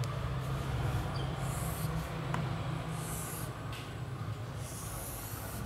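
Marker pen drawn across a whiteboard in three long scratchy strokes, about 1.5, 3 and 5 seconds in, as the lines of a shape are drawn. Under it runs a steady low hum.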